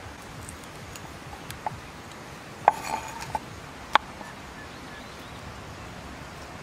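A kitchen knife knocking and clinking against a wooden chopping board as cauliflower is cut, a handful of irregular sharp clicks, the loudest about a third of the way in and again a little past halfway, over a steady faint hiss.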